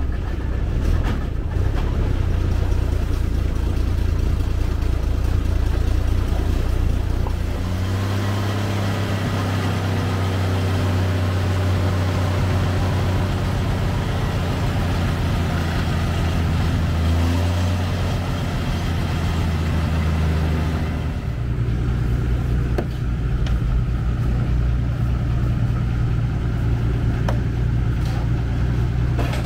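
Old ZIL-164 dump truck's petrol six-cylinder engine running steadily. Its pitch changes abruptly about 8 seconds in and again about 21 seconds in, first under way, then while the tipper bed is raised to dump its load.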